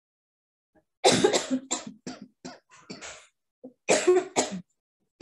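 A person coughing: a bout of several coughs about a second in, then a second bout of a few coughs near the end. Heard over a video-call microphone that cuts to dead silence between sounds.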